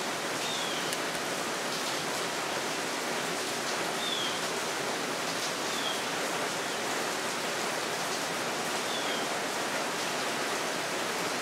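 Steady hiss of rain falling on the building, with a few faint, short high chirps that fall in pitch.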